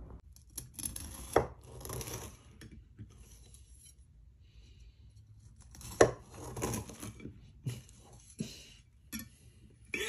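A knife cutting into a blueberry buckle cake with a crisp cornflake streusel top: two bouts of crunching and scraping, about a second in and again about six seconds in, then a few single sharp taps of the blade against the glass cake stand.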